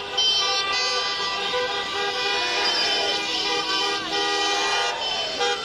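Many car horns honking together in long, overlapping blasts from a line of cars: celebratory honking.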